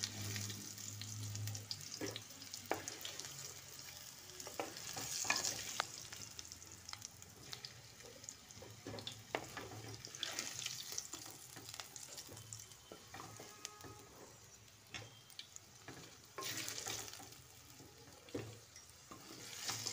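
Boiled potato chunks sizzling in hot oil in a kadai, with a spatula scraping and clicking against the pan as the fried pieces are lifted out, the activity coming louder in a few spells.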